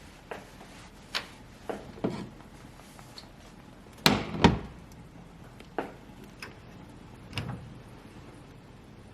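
Kitchen handling noises: scattered knocks and clicks of cookware and utensils being moved, with two louder thuds in quick succession about four seconds in.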